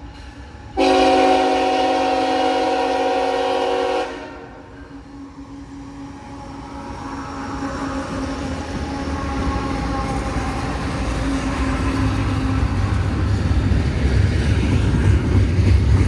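CSX locomotive's air horn sounding one long blast of several notes together about a second in, cutting off after about three seconds, followed by the low rumble of the slow-moving train growing steadily louder as it approaches.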